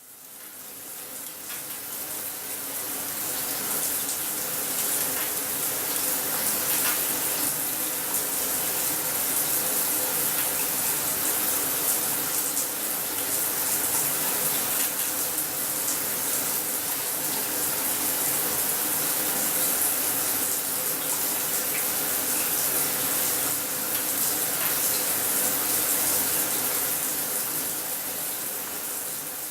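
Water spraying steadily from a single-function soft-spray shower head, a dense even hiss that builds over the first few seconds and falls away near the end.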